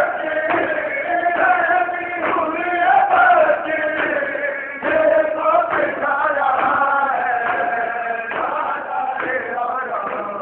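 Men chanting a noha, a Shia lament, in unison with a crowd joining in, punctuated by the sharp slaps of matam chest-beating.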